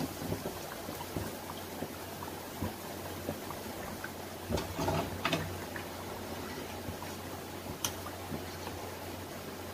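Pinwheel samosas deep-frying in hot oil, a steady sizzle, with a few short clinks about halfway through and once more near the end, as from a utensil against the pan.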